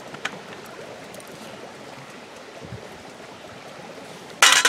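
Steady rush of a flowing creek, with a few faint crackles from a wood campfire and one brief loud noise near the end.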